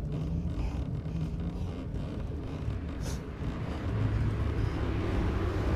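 Low wind rumble and road noise on the microphone of a camera riding on a road bike. A brief hiss comes about three seconds in.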